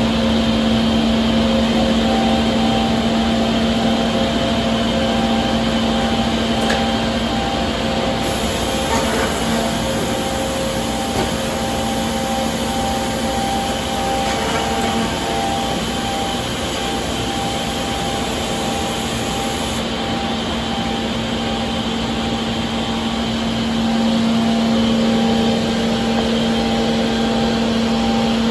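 SCM ME25 edgebander running, a steady mechanical hum with a fixed low tone. It grows a little louder about 24 seconds in.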